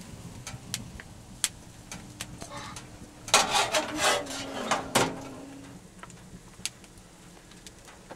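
Liquid scooped from a large metal basin with a plastic scoop and poured back in, splashing and clattering for about two seconds in the middle, with scattered small clicks and knocks around it.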